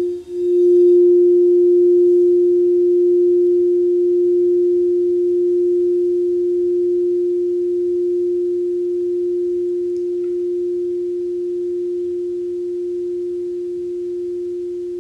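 White crystal singing bowl ringing out with one steady pure tone after being played. The tone drops out briefly just at the start, then holds and slowly fades.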